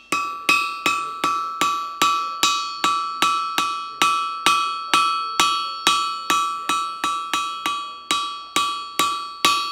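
Blacksmith's hand hammer striking a red-hot carbon-steel skillet piece on an anvil in a steady rhythm, about two and a half blows a second, the anvil ringing between blows. The edge is being hammered round so that it stays even and not lumpy.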